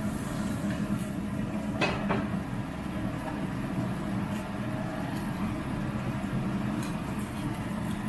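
Steady low rumble from a gas stove with its burner lit, under butter browning and quietly sizzling in a frying pan. A light knock about two seconds in.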